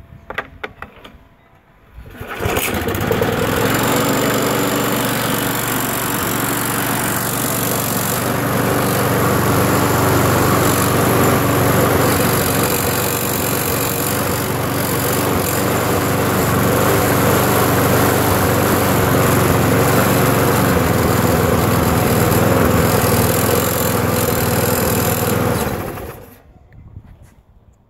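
Briggs and Stratton lawnmower engine starting about two seconds in and running steadily, then shutting off and winding down near the end. It now has spark again, after a shorted metal spark plug cap was removed.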